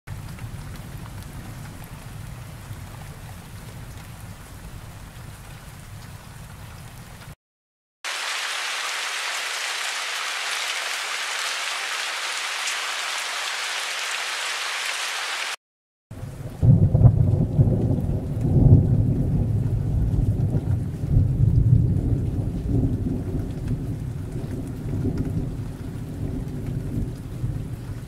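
Thunderstorm: a low, steady thunder rumble under rain for about seven seconds. After a brief silence comes heavy rain alone, an even hiss, for about seven seconds. After another brief silence, louder rolling thunder rumbles over light rain.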